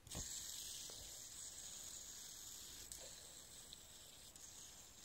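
Fidget spinner's ball bearing spinning freely, a steady high hiss that slowly fades as it spins down, with a few faint ticks.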